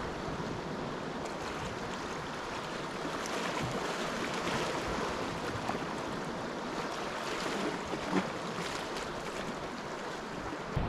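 Sea swell washing against shoreline rocks, a steady hiss of surf, with one brief soft knock about eight seconds in.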